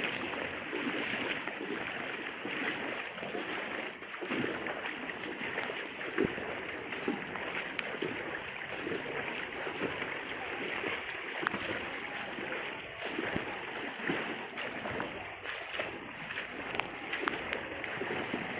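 Fast-flowing floodwater: a steady, unbroken rush of water with small scattered knocks and splashes.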